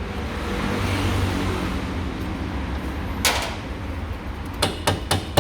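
Metal tools and suspension parts being handled during control-arm fitting: a swell of steady noise, then one sharp metallic clack about three seconds in and a quick run of clinks and knocks near the end.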